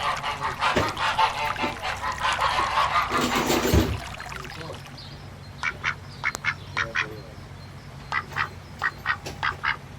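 Ducks quacking. For about four seconds many calls overlap in a busy chorus, ending with a low thump. After that come about a dozen short single quacks in small clusters.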